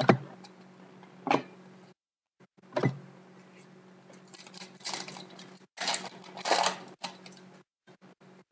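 Trading cards being handled: three sharp knocks a second or so apart, then a few seconds of sliding and rustling as the cards are shuffled.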